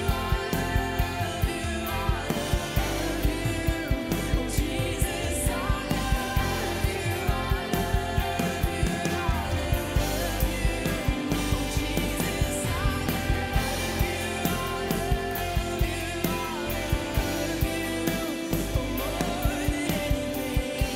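A live worship band of electric guitar, bass, keys and drums plays a song with a steady drum beat, and a woman sings the lead.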